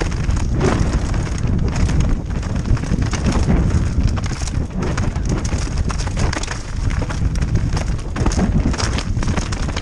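Mountain bike running fast over a rough dirt forest trail: a steady low rumble of wind buffeting the microphone, with irregular knocks and rattles from the bike over roots and stones.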